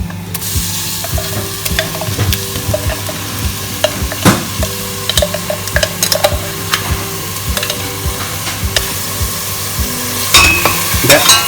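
Blended garlic, ginger and onion paste sizzling as it fries in hot oil, while it is stirred, with the utensil clicking and knocking against the cookware. The sizzle sets in just after the start and gets louder near the end.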